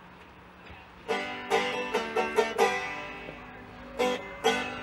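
Banjo picking a quick run of plucked notes as a song's opening lick, starting about a second in, pausing briefly, then picking up again near the end.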